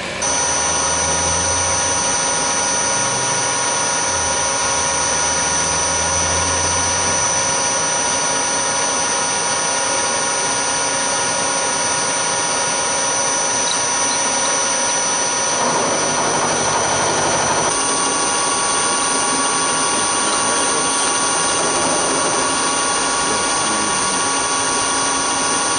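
Milling machine spindle running with a steady high-pitched whine while an end mill trims the end of a steel bar held in the vise. A rougher stretch comes about sixteen seconds in, after which the tone changes slightly.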